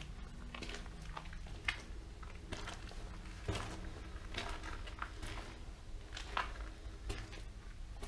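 Footsteps on a rough, wet tunnel floor: irregular crunching steps about one or two a second, over a steady low hum.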